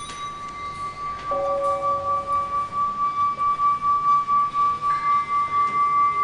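Background music of long, held ringing tones like a singing bowl or chimes, with a quick even pulse in the loudness; a lower pair of notes comes in about a second in and a higher one near the end.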